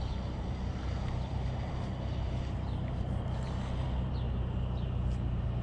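Engine of an approaching vehicle running steadily as a low hum, growing slightly louder toward the end.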